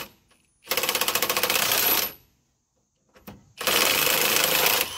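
Half-inch cordless impact wrench hammering in two bursts of about a second and a half each, backing out the front bumper bolts.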